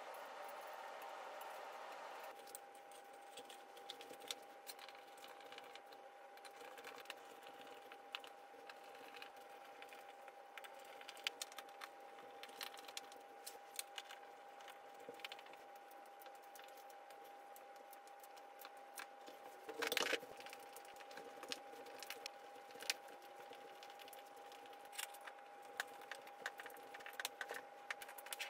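Faint clicks, taps and rattles of screws, tools and metal frame parts being handled while a standing desk is put together, with a louder clatter about twenty seconds in. A faint steady tone runs underneath.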